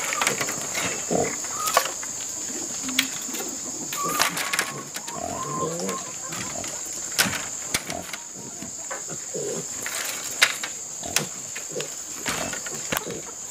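Green leaf strips rustling and clicking as hands lift and weave them over one another on dry ground. A steady high-pitched drone runs underneath, with a few short animal calls.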